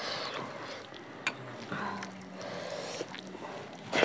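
Lentil dal spooned onto cooked rice, then fingers squishing and mixing the wet rice and dal on a plate, with a few light clicks. At the very end a handful goes into the mouth, the loudest moment.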